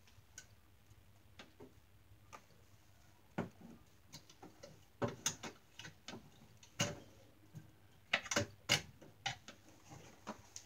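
Clothes hangers clicking and knocking on a wardrobe rail as hanging clothes are pushed aside and handled: scattered sharp clicks, sparse at first, then in quick clusters from about three seconds in, loudest near the end.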